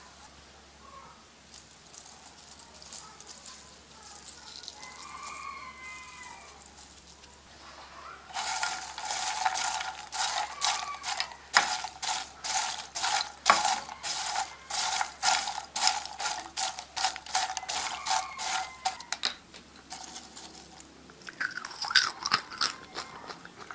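Popped popcorn being stirred and tossed in a frying pan with a silicone spatula: quiet at first, then from about eight seconds in a long run of dry, rustling crunches at about two or three strokes a second, with a shorter burst of stirring near the end.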